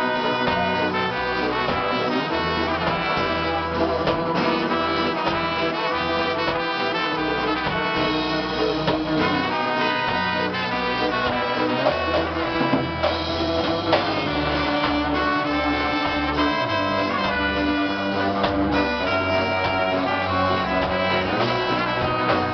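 Live reggae band playing, with a trombone and trumpet carrying the melody together over a stepping bass line, keyboard and guitar.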